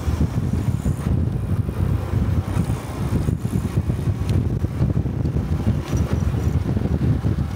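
Honda Cub 125's single-cylinder four-stroke engine running as the motorcycle rides along, with wind buffeting the microphone as a steady low rumble.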